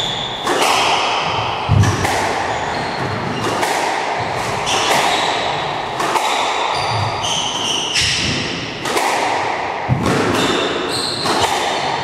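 Squash rally: the ball struck by rackets and smacking off the court walls, sharp impacts every second or two that echo round the enclosed court, with many short high squeaks of players' shoes on the wooden floor in between.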